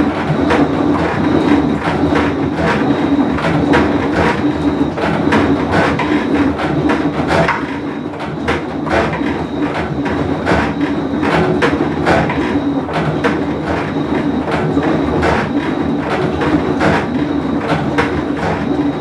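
Whirlpool Cabrio top-load washing machine running with a bad drum bearing. There is a steady hum throughout, with rapid, irregular clattering knocks over it.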